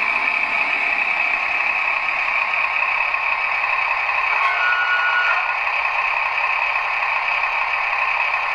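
Sound decoder of a Trix H0 model DB class 724 Indusi measuring railcar playing its diesel railbus running sound through the model's small speaker. About four and a half seconds in, a brief high brake squeal sounds as the railcar slows to a stop.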